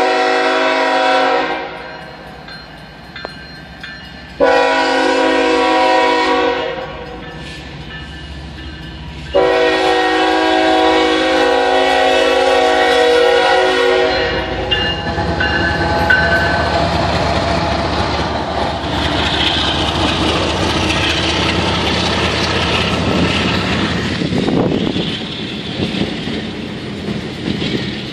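Norfolk Southern freight locomotive's air horn sounding at a grade crossing: the tail of one blast, then two more, the last held about five seconds. The locomotive and a string of boxcars then run past, wheels clattering on the rails.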